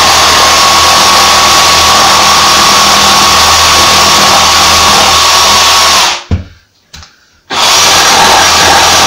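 Jigsaw cutting along a scribed line in a painted timber frame, running steadily with a faint whine. A little after halfway it stops for about a second and a half, with a knock and a click in the pause, then runs again.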